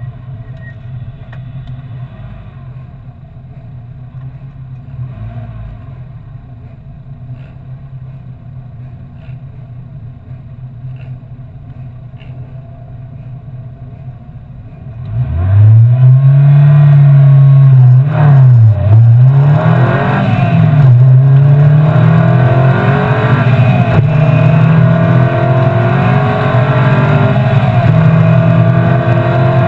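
Lotus Elise race car's four-cylinder engine heard from the cockpit: idling steadily, then about halfway through revving hard and accelerating away for the race start, much louder, the pitch climbing with quick dips at the upshifts before rising steadily through the next gear.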